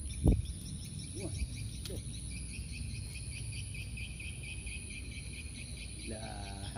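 Insects chirping in a quick, even rhythm, with a steady high whine under it. A short low thump comes just after the start.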